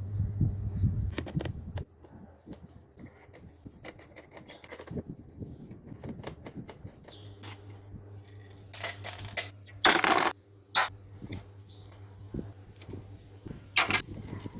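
Small metal parts and tools clicking and clattering during hands-on repair work, with a low steady hum under the start and the second half. A few short, louder rasping bursts come about ten seconds in and again near the end.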